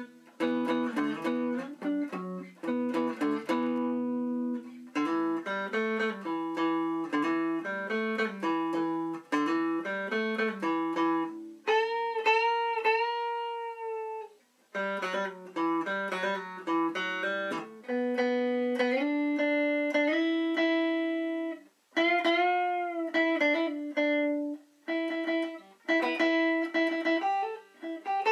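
Small semi-hollow CS-356-type electric guitar played in a sound test: single plucked notes and chords, with bent notes that rise and fall in pitch around the middle and again later.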